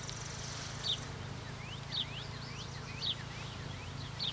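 Honeybees buzzing around an open hive as a steady low hum, with a bird giving short high chirps about once a second and a few quick rising chirps in the middle.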